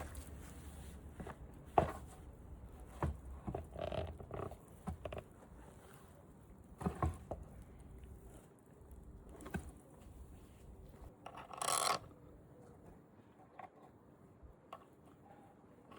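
Scattered knocks and clicks of handling, the loudest about two seconds in, with a short rushing noise lasting about a second near the end.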